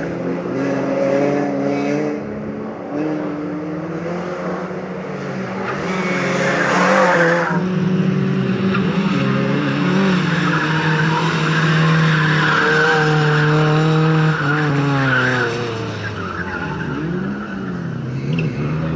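Renault Clio hatchback's engine revving up and falling back again and again as it is driven hard through a tight cone slalom, with tyres squealing and skidding on the asphalt. A loud burst of tyre noise about six to seven seconds in cuts off suddenly.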